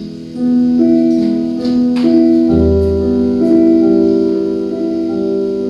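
Piano playing slow, sustained chords that change every second or so, with a deep bass note struck about two and a half seconds in.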